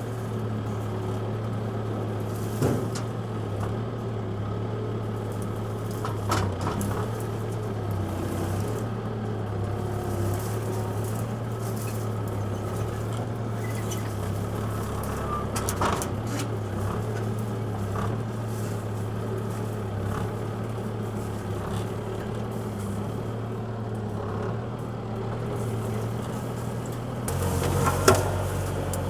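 An engine running steadily at a constant speed, with a few short knocks or clanks over it.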